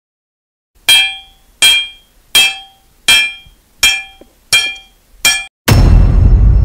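Sound effect of seven sharp ringing strikes, evenly spaced about 0.7 seconds apart, followed near the end by a sudden loud deep boom that lingers.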